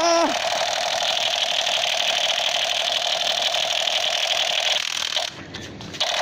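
Toy laser gun's electronic rapid-fire sound effect, a steady fast rattling buzz. It cuts out briefly about five seconds in, then starts again.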